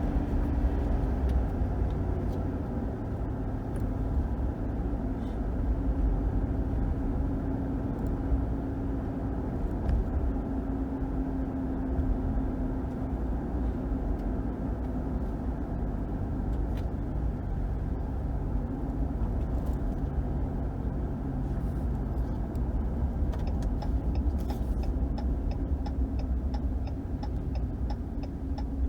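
Cabin sound of a 2021 Ram 1500's 5.7 HEMI V8 driving along with steady low road and engine rumble. Near the end a turn signal starts ticking, roughly two clicks a second.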